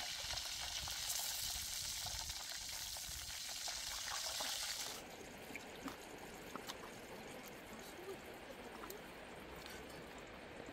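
A large piece of skin-on pork frying in a wok of hot oil: a steady sizzle that cuts off suddenly about five seconds in. After that comes a quieter steady outdoor hiss with a few light clicks.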